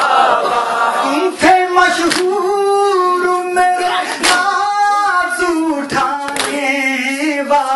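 A male noha reciter sings a long, drawn-out line of a Muharram lament with no clear words, its pitch slowly wavering. Sharp slaps of mourners' hands on their chests (matam) land every one to two seconds. A group of voices sings along in the first second.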